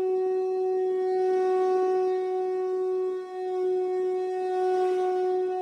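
A conch shell (shankh) blown in one long, steady, mid-pitched note that wavers only slightly.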